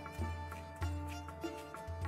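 Instrumental music: sharply struck notes over a deep bass that changes note about every half second, with one high note held steadily underneath.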